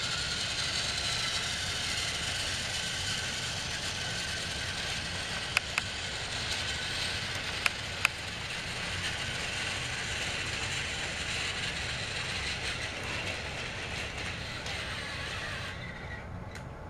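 Battery-powered TrackMaster Thomas toy engine running along plastic track, its small motor and gearbox whirring steadily, with a few sharp clicks about five to eight seconds in. The whirr drops away suddenly near the end.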